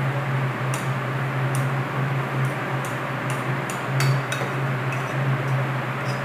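Light clicking ticks, roughly two a second and unevenly spaced, from a small kitchen sieve being tapped and shaken to sift cassava flour into a bowl. Under them runs a steady hum and hiss.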